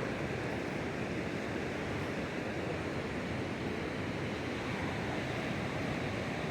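Ocean surf washing steadily on the beach, with some wind on the microphone.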